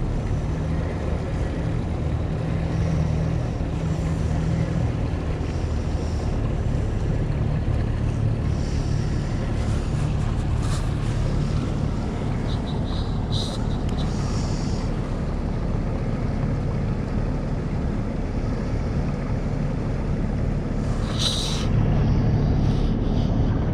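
A 50 hp Yamaha outboard motor running steadily at low speed, over a wash of water and wind noise. A few brief clicks come in the middle, and a short hiss comes near the end.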